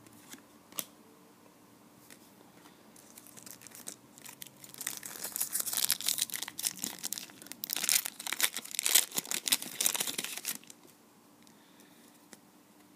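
A trading card pack's wrapper being torn open and crinkled: dense crackling and tearing for about six seconds, starting a few seconds in and stopping abruptly. Two faint ticks just before, under a second in.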